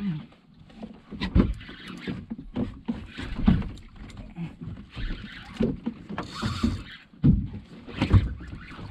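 Water slapping against a small boat's hull in irregular low thumps, with splashing in between.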